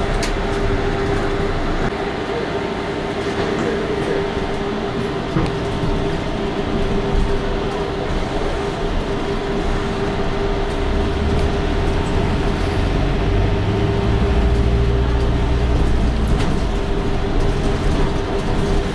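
A London bus in motion, heard on board: steady running and road noise with a constant whine. A deeper rumble grows louder from about halfway through.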